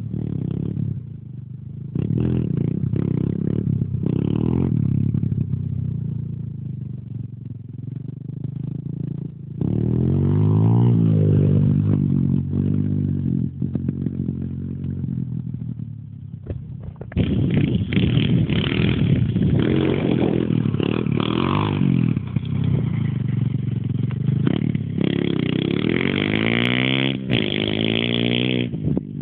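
Thumpstar 125 Pro Elite pit bike engine being ridden, revving up and down over and over with its pitch rising and falling. It gets suddenly louder at about two, ten and seventeen seconds in.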